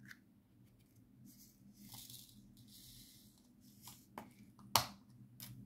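Small resin diamond-painting drills rattling softly as they are poured from a plastic storage container into a plastic tray, with a few light plastic clicks and taps; the sharpest click comes near the end.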